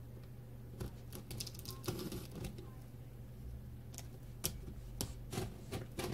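Scissors cutting and scraping at the packing tape of a cardboard shipping box: irregular clicks and short scratchy rustles.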